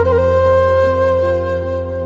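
Instrumental background music: a flute holding one long, steady note over a low drone.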